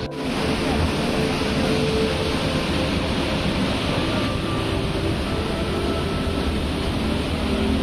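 Water thundering through an open dam sluice gate and churning in the spillway below: a loud, steady rush.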